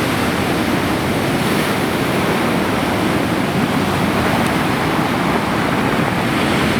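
Stormy Black Sea surf: heavy waves breaking and washing in a steady, loud roar of water with no single crash standing out.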